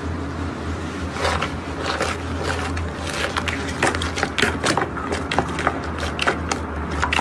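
Slime being squeezed and worked by hand, giving many sharp crackling pops and clicks from about a second in, coming thicker toward the end, over a steady low hum.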